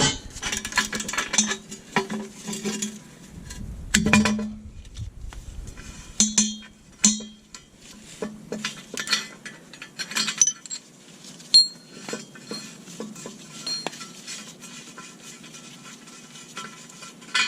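Socket wrench with an O2 sensor socket working an oxygen sensor loose from a steel exhaust header: a run of quick metal clicks and clinks, a louder knock about four seconds in, then scattered taps.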